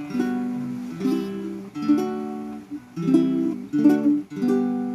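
Kohala Kine'o baritone ukulele strummed: a run of about six or seven chords, each struck sharply and left to ring out and fade before the next.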